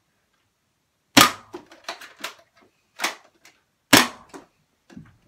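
Adventure Force Aeon Pro spring-powered foam-dart blaster firing two sharp shots about three seconds apart, with a softer clack in between and smaller plastic clicks around them.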